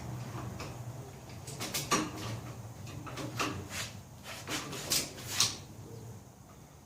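A series of sharp metal clanks and knocks, about a dozen over a few seconds, the loudest in the middle, as steel loader and subframe parts are handled and fitted, over a low hum that fades out.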